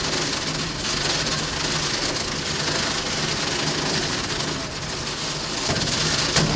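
Combat robots' electric drive and weapon motors whirring in the arena: a steady noisy drone with a low hum that swells and fades, and a sharp knock near the end.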